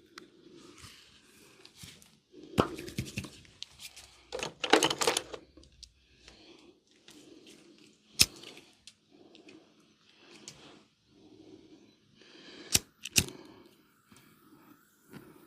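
Hands rubbing in short, repeated massage strokes, broken by sharp clicks: a rapid cluster about a third of the way in, a single click past the middle, and two quick ones close together near the end.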